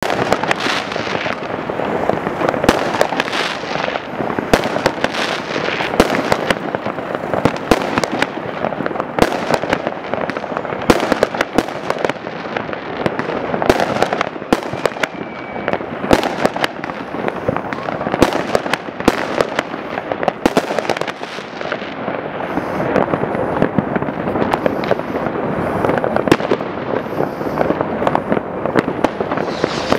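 Many fireworks going off at once: a continuous, dense crackle of bangs and pops, with louder sharp reports scattered irregularly throughout.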